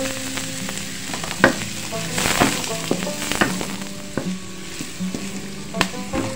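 Diced carrots and green vegetables stir-frying in a wok: a steady sizzle with a wooden spatula scraping and knocking on the pan several times.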